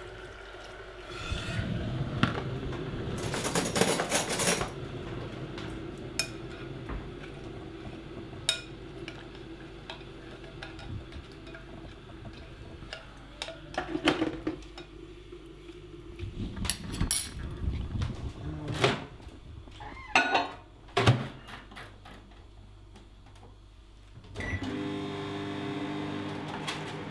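Microwave oven running with a steady hum, under scattered knocks and clinks, the loudest clatter about four seconds in. A different steady hum starts near the end.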